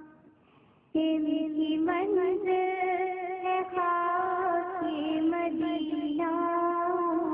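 A woman singing a naat, an Urdu devotional poem, into a microphone. After a brief near-silent pause she comes back in about a second in and sings long, wavering held notes.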